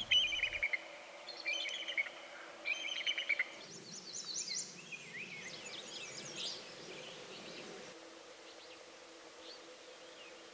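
Wild songbirds singing: a short trilled phrase repeated about three times in the first few seconds, then mixed chirps and whistled notes from more than one bird over a soft rushing hiss, thinning out to a few faint calls near the end.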